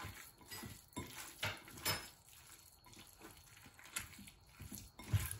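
Hands squishing and kneading wet minced meat with herbs in a glass bowl, the mince loosened with added water; soft irregular squelches with a few sharper taps against the bowl.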